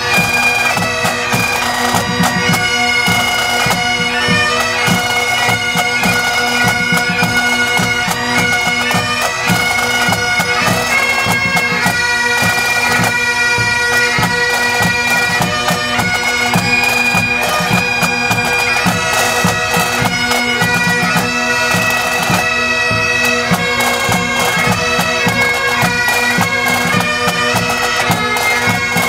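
Great Highland bagpipes of a pipe band playing a tune over their steady drones, with drums beating underneath.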